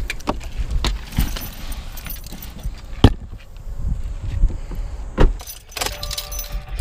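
A camera bag and tripod being handled and set onto a car's back seat: keys jangling, rustling and clattering, with two sharp thumps about three and five seconds in.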